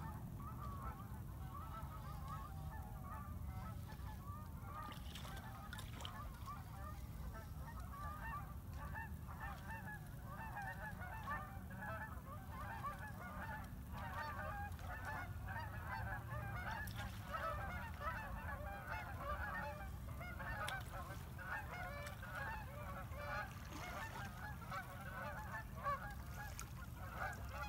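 A large flock of birds calling without pause, many short overlapping calls massed together, over a steady low hum.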